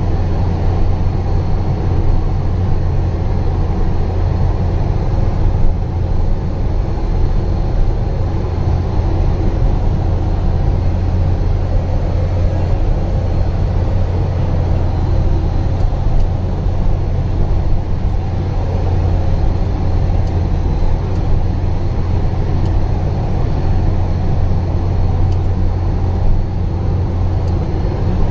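Truck driving along a rough dirt track, heard from inside the cab: the engine gives a steady low drone that holds even throughout.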